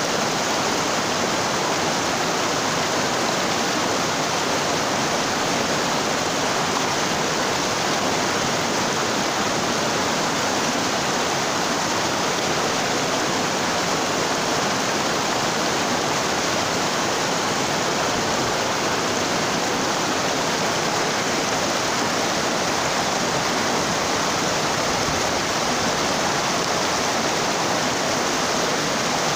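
Mountain stream running shallow over boulders and stones: a steady, even rush of water.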